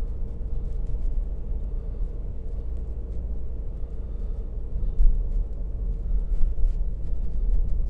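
Car interior noise while driving: a steady low engine and road rumble with a faint hum, scattered light ticks and a single louder bump about five seconds in.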